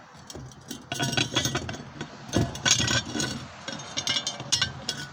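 Irregular sharp metallic clinks and knocks from steel square tubing held in pliers as it is handled and turned, with one heavier knock about halfway through.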